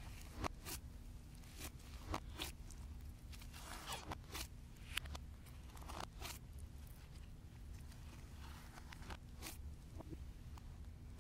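Hands kneading, stretching and pressing blue textured slime, making irregular crackles, pops and squishes.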